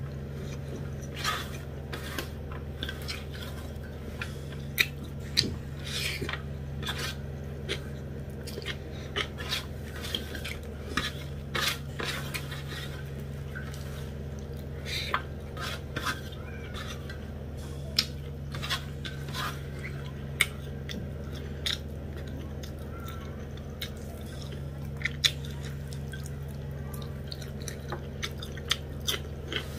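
Close-miked eating sounds of rice and curry eaten by hand: irregular wet chewing and mouth smacks, with light clicks of fingers scraping a stainless-steel plate, over a steady low hum.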